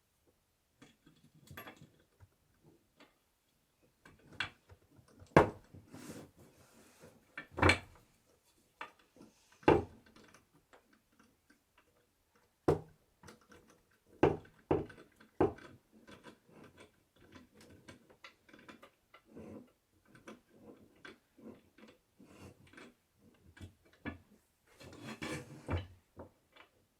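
Wooden bed parts being handled and fitted together: irregular knocks and clatters of wood on wood, with quieter shuffling and rattling between them and a busier patch of handling near the end.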